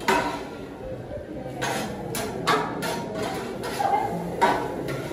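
Metal spatulas clacking against a teppanyaki griddle: a string of sharp strikes, one right at the start and then a rapid run from about one and a half seconds in, spaced roughly half a second apart, over a murmur of voices.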